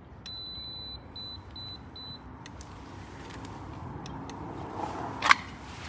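CENTSYS photoelectric safety beam emitting its 4 kHz alignment tone, a longer beep followed by a run of short beeps that stops about two seconds in: the sign that the transmitter and receiver are aligned. A single sharp knock comes near the end.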